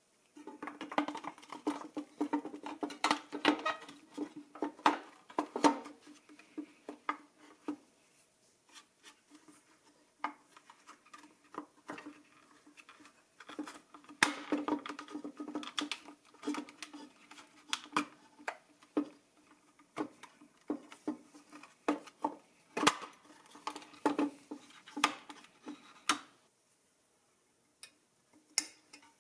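Pressed-steel toy jeep parts, freshly powder-coated, being fitted together by hand: irregular metallic clicks, taps and light clatter, busiest early on and again in the middle stretch, thinning to a few clicks near the end.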